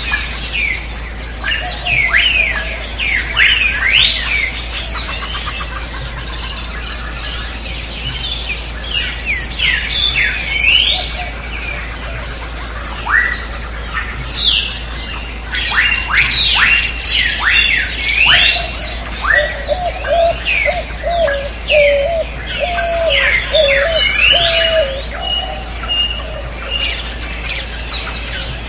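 Jungle ambience of many birds chirping and calling, with quick whistled notes sweeping up and down. A lower, wavering call repeats in the second half, over a steady low hum.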